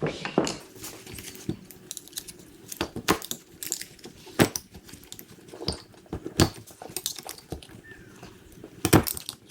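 Irregular sharp clicks and light metallic rattles of the square retaining clips being popped off the old fuel injectors on the removed fuel rail, with the small parts being handled.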